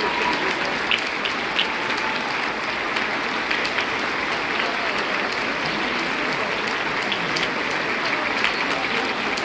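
Large theatre audience applauding steadily, a dense wash of clapping that doesn't let up.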